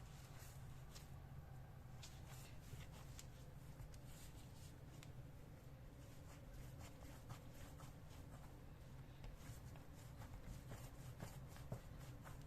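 Faint rustling, scraping and light clicks from hands working at a kitchen task, over a low steady room hum.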